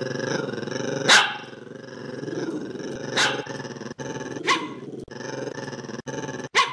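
A dog growling steadily, broken by four short, sharp barks spaced a second or two apart; the barks are the loudest sounds.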